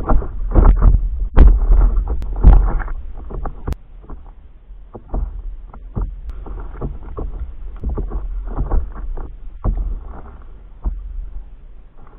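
Water slapping and splashing against a stand-up paddleboard, heard right at the board's nose, with paddle strokes in the water. The splashing is dense and loud for the first few seconds, then turns to sparser, softer slaps.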